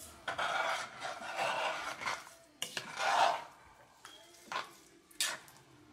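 A spoon stirring rice through a thick, wet jambalaya in a cast iron Dutch oven, scraping the pot: about half a dozen uneven scraping strokes.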